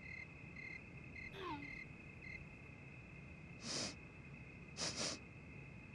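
A woman sniffing close to her sleeve: one short sniff, then two quick sniffs about a second later. Before them, about a second and a half in, she gives a faint falling 'hm'.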